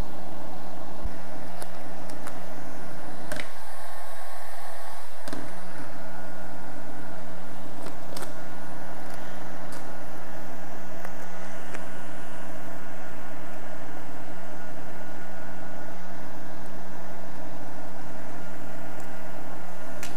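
Electric heat gun running steadily, its fan and heater whirring, with occasional crinkles and clicks of vinyl wrap film being handled.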